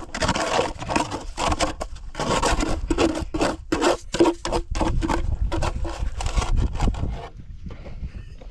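Repeated rough scraping strokes of a tool working wet cement mortar, stopping about seven seconds in.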